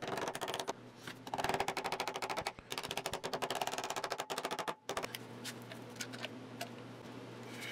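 Rubber mallet tapping rapidly on plywood, driving glued box joints together. About five seconds in, the taps give way to a few sparser clicks as one-handed bar clamps are squeezed onto the box.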